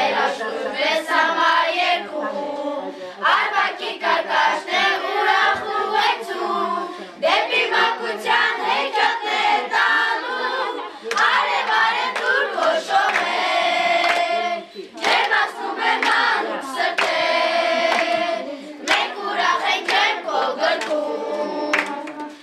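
A group of children singing a song together, with hands clapping along.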